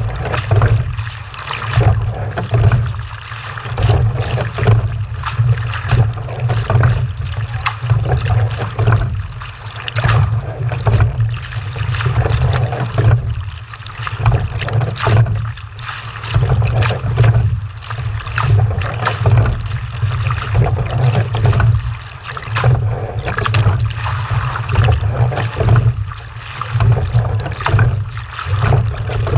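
Loud rushing noise with a heavy low rumble, swelling and easing in a steady rhythm about every one and a half seconds.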